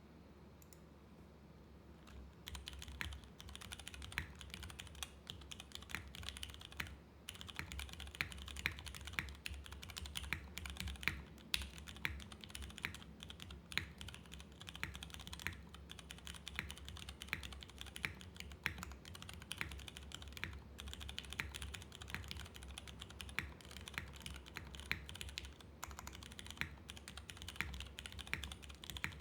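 Typing on a TGR x GAF 910 mechanical keyboard with lubed Cherry MX Clear tactile switches, aluminium plate and CRP keycaps: a steady stream of key clacks that starts about two seconds in, with a short pause near the quarter mark.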